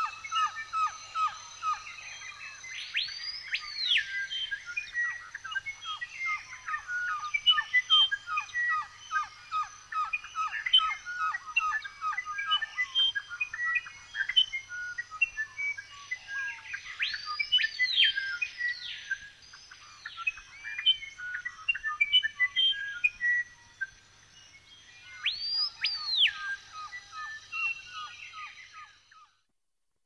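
Daytime tropical forest ambience: many birds chirping and calling together, with a loud call that swoops up and back down heard several times, over a faint steady high insect drone. It all cuts off shortly before the end.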